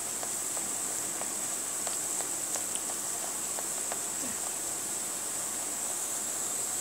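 Rounds of papdi, a thin flour-and-ghee dough, deep-frying in hot oil in a kadhai: a steady high sizzle with scattered small pops. The papdi float up soon after going in, a sign that the oil is at the right frying temperature.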